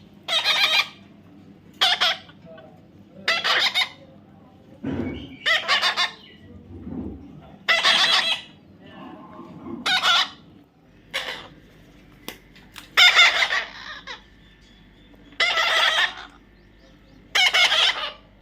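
Parrot giving loud, harsh screeching calls, one roughly every two seconds, about ten in all.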